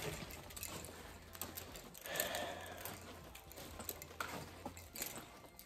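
Irregular footsteps and handling rustle as someone walks through a house carrying a phone, over a faint steady low hum that stops near the end.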